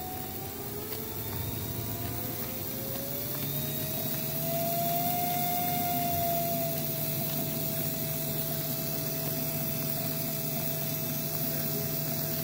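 Small DC motor fitted with an encoder, running with a whine that rises in pitch as its supply voltage is turned up, then holds steady at near top speed.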